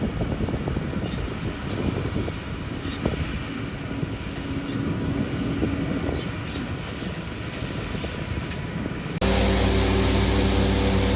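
A heavy farm vehicle's engine running steadily, with scattered clicks and knocks over it. About nine seconds in it cuts off suddenly and background music starts.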